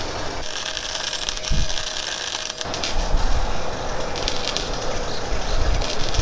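MIG welder crackling and sizzling as it lays welds on a steel boat hull. The crackle changes abruptly twice, with a few low thumps underneath.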